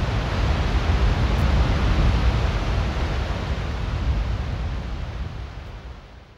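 Steady rushing noise with a deep rumble underneath, fading out over the last couple of seconds to silence.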